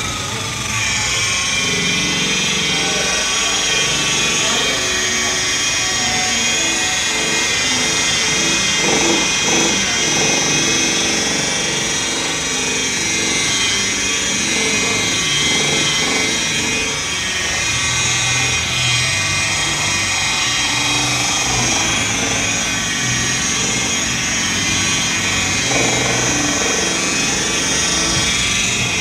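DeWalt rotary polisher with a wool buffing pad running steadily against a truck's plastic headlight lens, its motor giving a steady high whine.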